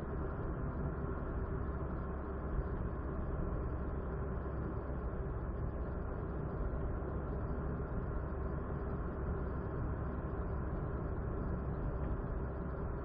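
Steady low rumble of a car driving, engine and tyre noise together, with one small bump about two and a half seconds in.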